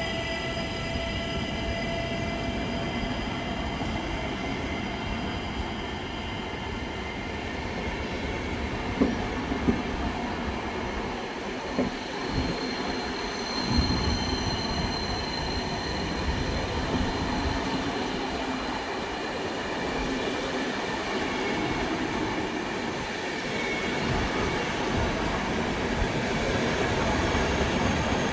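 Passenger coaches of an express train rolling past on their way out of the station: a steady rumble of steel wheels on rail, with thin high wheel squeals at times and a few sharp knocks over rail joints midway.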